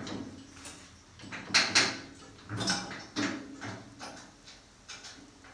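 Metal clunks and scrapes of a part being worked into place on a Ford 1700 tractor's sheet-metal hood: a run of sharp knocks, the loudest two close together about a second and a half in, then a few lighter ones.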